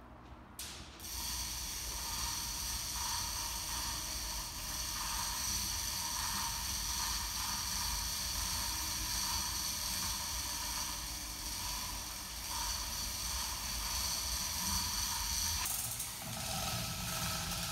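Electric chain hoist running steadily as it hoists a 32-foot aluminum boat hull, starting about a second in; its sound changes near the end.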